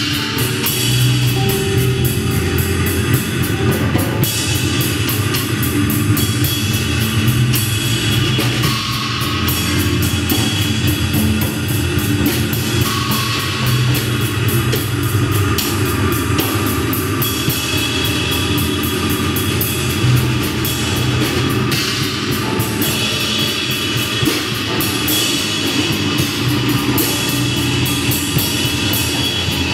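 Live band improvising: six-string electric bass, electric guitar through an amp, and a drum kit playing a loud, dense rock-like jam. A heavy low bass line sits under constant drum and cymbal hits and sustained guitar.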